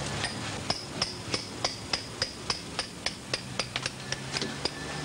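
Hammer striking a steel chisel held against a stone block, cutting a line into the stone: a steady run of sharp metallic taps, about three to four a second, each with a short bright ring.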